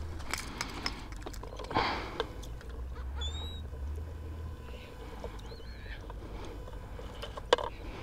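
Scattered clicks and a brief rustle of handling over a low steady rumble, with a few short high bird chirps near the middle.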